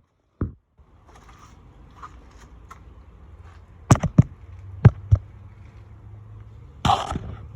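Building work on a wooden chicken coop: a thud, then four sharp knocks in quick succession over a steady low hum, and a short noisy rasp near the end.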